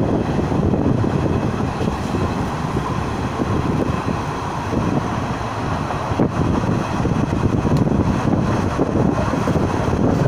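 Passenger train running at speed, heard from beside the coach: a steady rumble of wheels on the rails mixed with wind buffeting the microphone.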